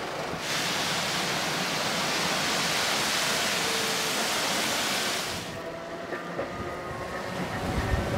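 Sapporo 3300-series streetcar scene: a loud, steady hiss starts abruptly just after the start and cuts off about five seconds in. The tram then runs with faint whining tones and low rumble, and a few rail clacks near the end.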